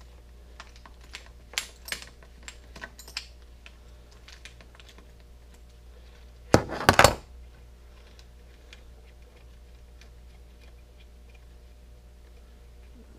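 Small metal clicks and taps from an Allen wrench and seat-clamp hardware as a saddle clamp bolt is worked loose on a bike. There is a louder brief clatter of metal parts about six and a half seconds in.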